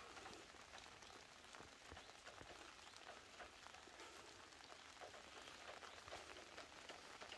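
Rain falling faintly on garden plants: an even hiss with many small drop ticks scattered through it.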